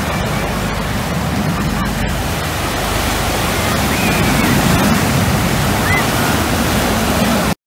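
Steady rumble and hiss of waves breaking along the shore, mixed with wind on the microphone, a little louder in the second half, with a few faint distant voices.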